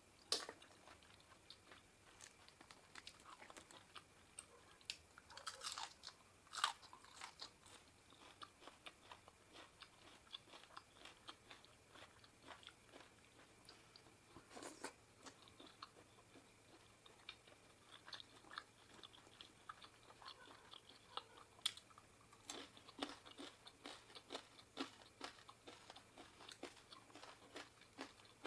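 A person eating seafood papaya salad close to the microphone: steady, irregular chewing and crunching with small clicks and smacks, in denser flurries now and then.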